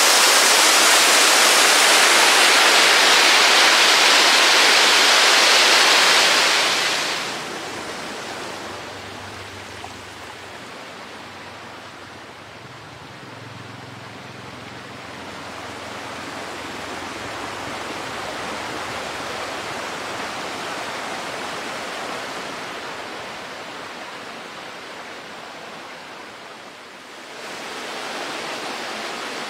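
Rushing mountain stream water, loud at first, dropping to a quieter rush after about seven seconds and rising again near the end.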